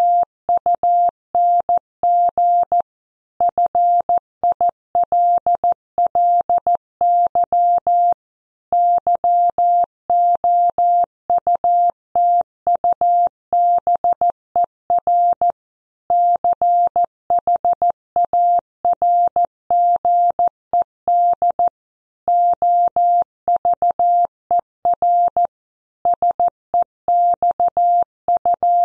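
Computer-generated Morse code: a steady tone of about 700 Hz keyed on and off in dots and dashes at 14 words per minute, spelling out a news headline, with short pauses between words.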